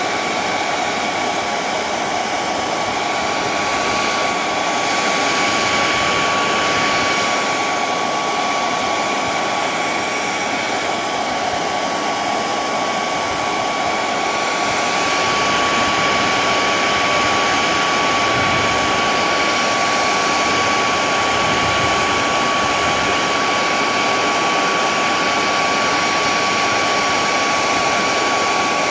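Hair dryer running steadily: a rush of air with a steady high whine from its motor, slightly louder from about halfway through.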